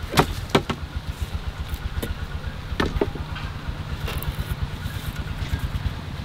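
Wooden sticks and poles knocking and clicking as they are handled, a handful of sharp knocks spread over the few seconds, over a steady low rumble.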